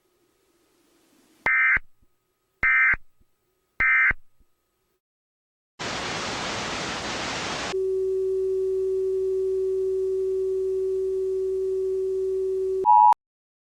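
Emergency Alert System end-of-message code: three short, harsh digital data bursts about a second apart. Then about two seconds of static hiss, followed by a steady low tone for about five seconds that cuts off with a brief higher beep.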